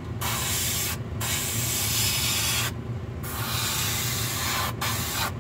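Compressed-air paint spray gun hissing as water-based paint is sprayed on in light passes, the hiss stopping briefly about four times as the trigger is let off. A steady low hum runs underneath.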